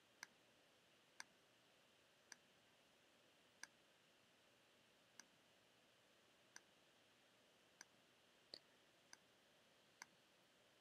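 Single clicks of a computer mouse, about ten of them at irregular intervals of roughly a second, each one placing a point along an outline in embroidery digitizing software. Faint room hiss lies between the clicks.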